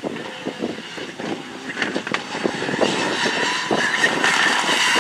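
Turbocharged four-cylinder engine of a Mitsubishi Lancer Evolution rally car at full throttle as it approaches, growing louder, with a string of sharp exhaust pops and crackles.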